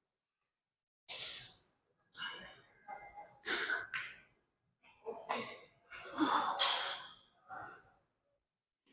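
A person breathing hard, with about six forceful exhalations a second or so apart, as during a set of weight-lifting reps.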